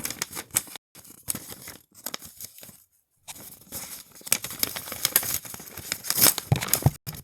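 A blind bag's packaging being torn open and crinkled by hand: crackly tearing and rustling in short bursts with brief pauses, getting louder in the second half.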